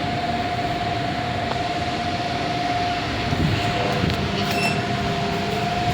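IFE passenger lift car travelling upward: a steady running rumble with a constant hum. A short high beep sounds about three-quarters of the way in.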